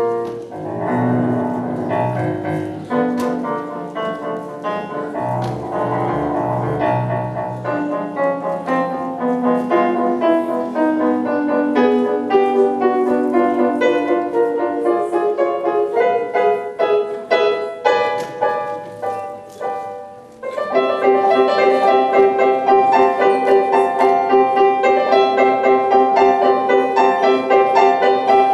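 Digital keyboard played solo with a piano sound. About twenty seconds in it drops briefly, then comes back louder and fuller with steady repeated notes over held tones.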